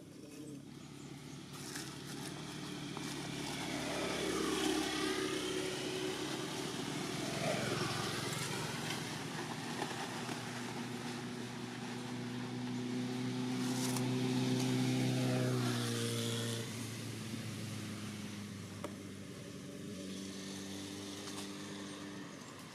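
An engine droning steadily. It slowly grows louder and then fades as it passes, with a small shift in pitch about two thirds of the way through.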